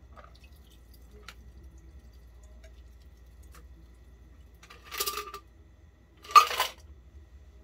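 A shaken cocktail strained from a metal shaker tin into a glass over ice: a quiet pour with a few faint ticks, then two short rattles from the tin about five and six and a half seconds in, the second the loudest.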